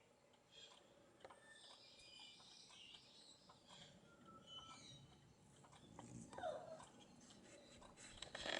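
Faint birds chirping and calling, with many short high chirps throughout. A louder call with a downward sweep comes about six and a half seconds in, and a short knock comes near the end.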